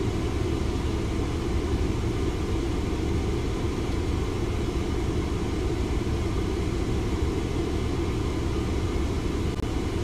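A car's air conditioning running steadily inside the cabin: an even, low rumble with no breaks.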